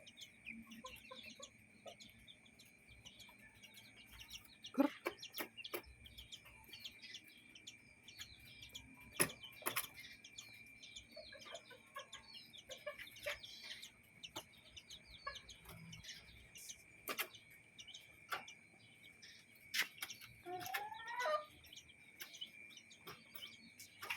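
Chickens clucking, with many short high peeps from chicks and a few sharp clicks over a steady high whine. A longer wavering call comes near the end.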